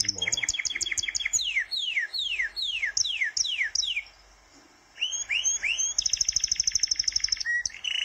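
Birds chirping and singing. Rapid high trills give way to a run of whistled notes that each slide down in pitch. There is a brief pause about four seconds in, then more chirps and another fast trill.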